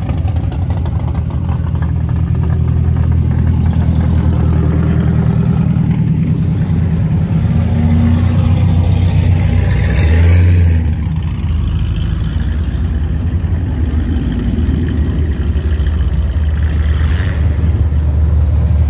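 Car engines running at low speed with a deep exhaust note as cars roll past. One gets louder about ten seconds in.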